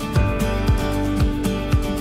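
Background music with a steady beat: a kick drum about twice a second under sustained chords.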